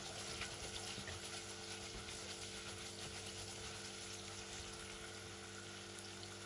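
Sliced onions in oil sizzling gently with fine crackles as they start to fry in a nonstick pot, stirred with a spatula.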